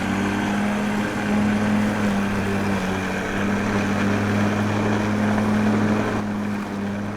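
A small motor running steadily with a constant hum, likely the electric motor of a homemade mini truck or tractor.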